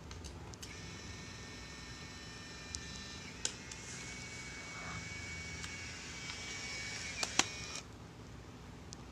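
Instax mini 11 instant camera's small motor whirring for about seven seconds, with sharp clicks in the middle and near the end, as it ejects the film pack's dark cover after fresh film is loaded.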